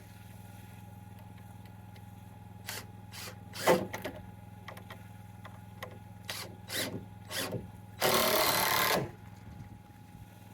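Tool work on wood: a string of sharp knocks, the loudest about three and a half seconds in, then a one-second noisy burst near the end, over a steady low hum.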